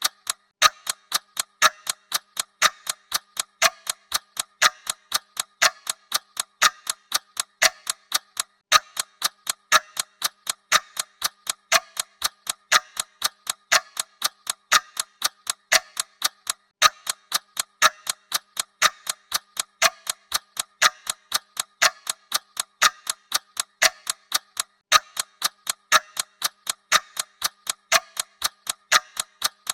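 Mechanical clock ticking sound effect: steady, even ticks at about two a second.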